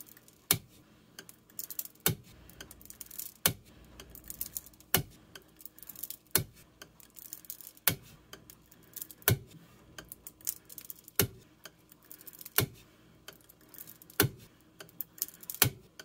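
Wire soap cutter slicing a cold process soap loaf into quarter-inch bars: a sharp snap about every second and a half as the wire is brought down through the loaf, with lighter clicks in between as the loaf is pushed forward along the cutter's base.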